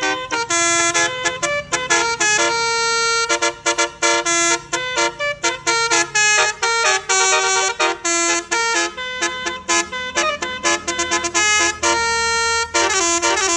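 Basuri telolet multi-tone bus horn playing a melody: many short notes in quick succession, several tones sounding together and stepping between pitches, with brief breaks between notes.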